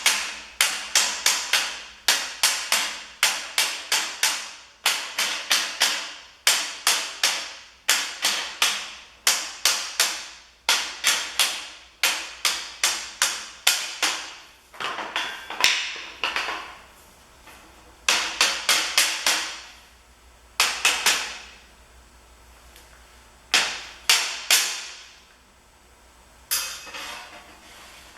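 Rawhide mallet tapping on half-inch square steel rings in quick runs of several sharp strikes, each ringing out briefly, with short pauses between runs. The blows drive half-lap notched joints together so the rings slide over one another and seat.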